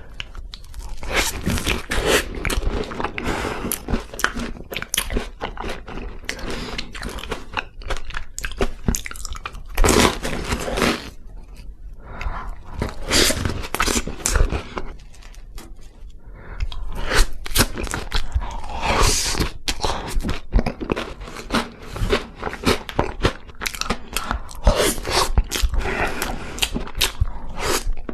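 Close-miked mukbang eating of cake: repeated bites with wet, crunchy chewing and crackling, in clusters with short quieter gaps between mouthfuls.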